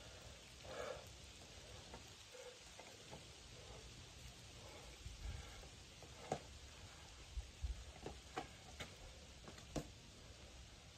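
Faint, sharp taps and scuffs of a climber's hands and rock shoes on sandstone as he moves up a boulder problem, mostly a scattered cluster between about six and ten seconds in, over a quiet background.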